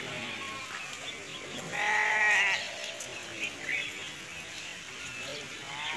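A single loud, wavering bleat about two seconds in, lasting under a second, over faint background noise.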